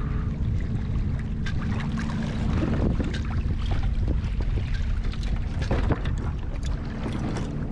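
Wind buffeting the microphone as a steady low rumble, with choppy water slapping and splashing around a kayak in many short irregular splashes.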